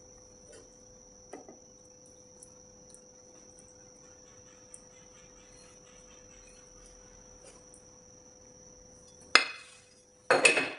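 A faint steady high whine in the background. About nine seconds in, a utensil knocks sharply against a dish, and near the end it clatters loudly against dishware.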